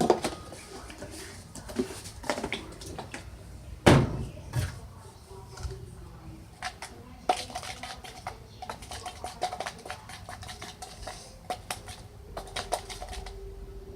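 A utensil clinking, tapping and scraping against a mixing bowl as slime ingredients are stirred together, with irregular knocks. The loudest knock comes about four seconds in.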